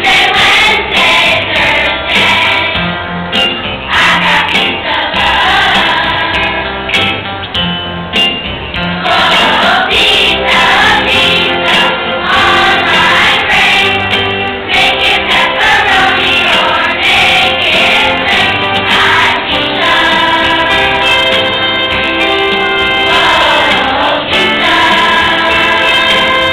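A chorus of fifth-grade children singing in unison over an instrumental accompaniment with low sustained chords.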